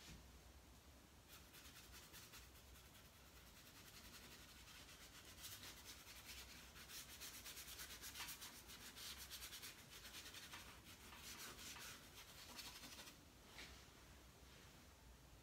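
Faint, rapid scratchy rubbing of paint being scrubbed onto paper in quick strokes. It starts about a second in, is strongest in the middle and trails off near the end.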